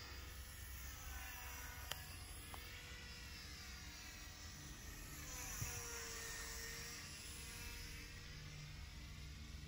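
Faint whine of a small electric RC warbird's motor and propeller, an Eachine F4U Corsair, flying overhead. Its pitch rises and falls several times as the plane passes and turns.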